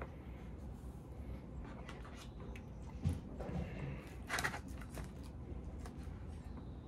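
Plastic forks scraping and tapping against a foam takeout container while food is pulled apart, a few soft clicks and scrapes with a sharper one about four and a half seconds in.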